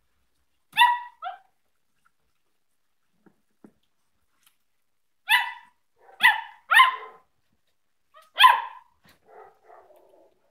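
Samoyed puppy barking in short, high yaps: one bark with a smaller yip right after about a second in, then four more barks between about five and nine seconds, followed by a few faint, softer sounds near the end.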